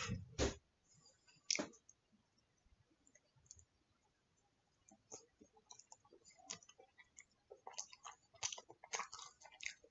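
A plastic fork knocks twice in a foil takeout tray while scooping poutine. After a pause, close-up chewing with many small wet mouth clicks follows.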